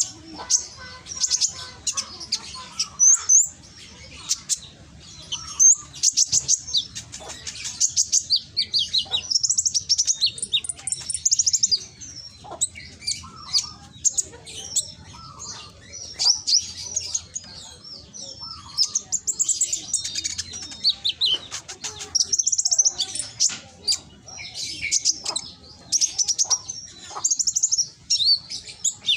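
Kolibri ninja (konin) sunbird singing: loud, rapid phrases of high-pitched chirps and trills, repeated with short pauses between them. This is the kind of full, forceful song that bird keepers play to provoke reluctant konin into answering.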